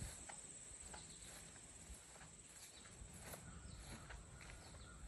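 Near-silent outdoor ambience: a steady high insect trill, with faint scattered short clicks and chirps.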